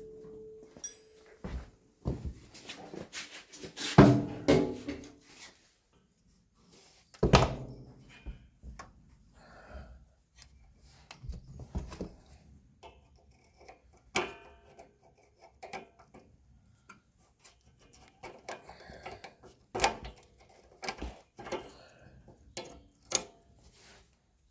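Irregular knocks, clunks and clatter of tools and parts being handled during repair work on a small tractor's rear axle, with the loudest knocks about 4 and 7 seconds in.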